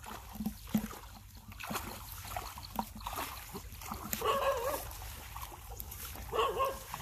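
A dog whining in two short wavering calls, about four and six and a half seconds in, over light splashing of legs and a net being pushed through shallow water.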